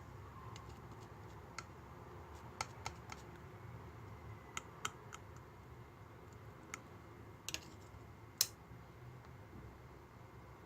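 Slime being handled by hand, giving about a dozen small sharp clicks and pops at irregular intervals, the loudest a sharp snap near the end.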